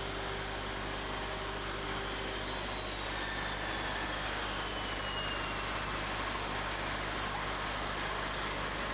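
Steady jet airliner noise, with a faint high whine falling slowly in pitch a few seconds in.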